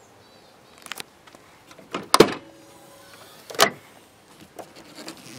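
Rear tailgate of a Toyota Hiace Regius van being opened by hand: a small click about a second in, then two loud clunks about a second and a half apart as the latch lets go and the hatch swings up, with a few softer knocks near the end.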